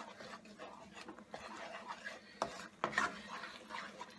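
Wooden spatula stirring a thick spinach sauce in a nonstick sauté pan: irregular soft scraping, with a few sharper clicks of the spatula against the pan about two and a half to three seconds in.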